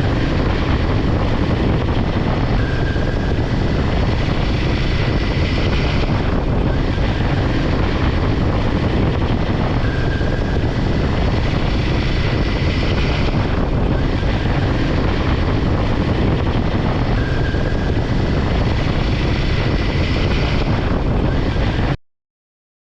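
Steady, loud rushing noise with a deep low rumble, like wind and engine noise on a moving motorbike. The same pattern repeats about every seven seconds, as if looped, and the sound cuts off suddenly near the end.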